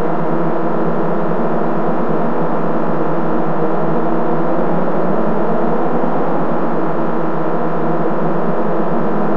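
Many DIN Is Noise software-synthesizer drones sounding together as one dense, sustained chord built on Bb, Db, Eb, E, F and Ab. It holds steady with no breaks.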